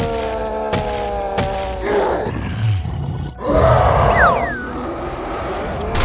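Cartoon sound effects and character vocal sounds. A held pitched sound falls slowly in pitch for about two seconds with two sharp knocks under it, then come rougher noisy bursts and, near the four-second mark, a steep falling whistle-like glide.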